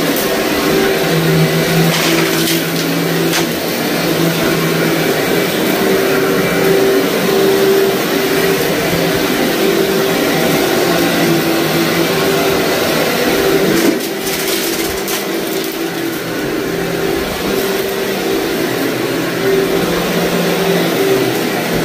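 Upright vacuum cleaner running steadily as it is pushed over dirty carpet, a constant motor hum with crackling as it picks up grit and debris. A sharp crackle about 14 seconds in, after which it runs a little quieter.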